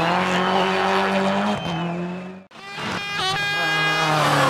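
A World Rally Car's turbocharged four-cylinder engine running hard at high revs, its note stepping at a gear change about one and a half seconds in. Just past halfway the sound drops away abruptly, then a rally engine comes back in with revs sweeping up and down before settling into a steady pull.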